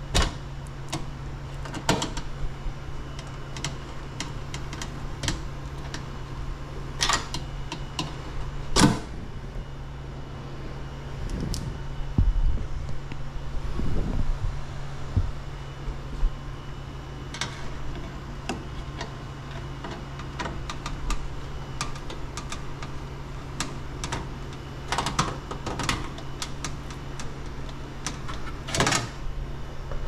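Scattered clicks and knocks of hands working the sheet-metal panels and wiring of an open air handler, the sharpest about nine seconds in and near the end, over a steady low hum.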